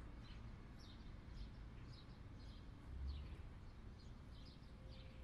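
Faint birds chirping: many short high chirps repeating, over a low outdoor rumble that swells briefly about three seconds in.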